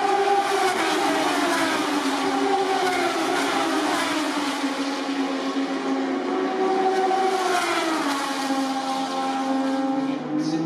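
Several Moto2 racing motorcycles, with Triumph 765 cc three-cylinder engines, heard at once as they lap the circuit. Overlapping engine notes slide down and climb again as the bikes brake, shift and accelerate.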